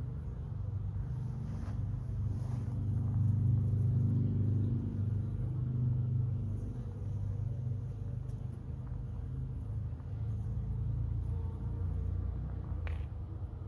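Bumblebee buzzing close to the microphone: a low, steady hum that swells a few seconds in and then eases off.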